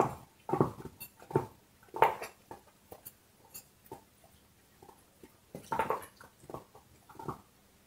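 A dog gnawing on a bone, with irregular wet crunches and cracks of its teeth on the bone. The chewing thins out to a few faint clicks for about three seconds in the middle, then picks up again in a cluster of crunches.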